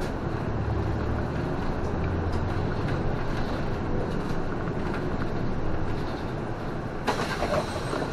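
City bus engine and drivetrain running steadily as it drives along, heard from inside the front of the cabin, with a short burst of air hiss about seven seconds in as it pulls in to a stop.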